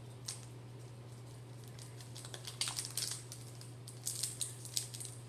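Foil wrapper of a Pokémon card booster pack crinkling and crackling in short bursts as it is worked open, over a steady low hum.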